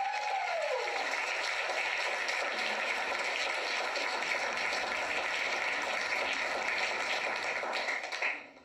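Wedding guests applauding the newly married couple, a steady clatter of many hands clapping, heard played back through laptop speakers. A single held tone fades out about a second in, and the applause cuts off abruptly near the end.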